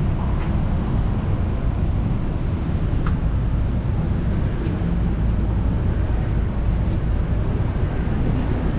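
Steady low rumble of outdoor background noise, with a faint click about three seconds in.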